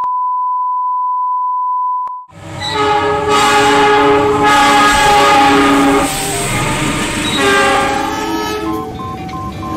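A steady 1 kHz test tone for about two seconds that cuts off abruptly. Then a diesel locomotive's multi-note horn sounds a long blast and, about a second later, a shorter one over the rumble of the passing train.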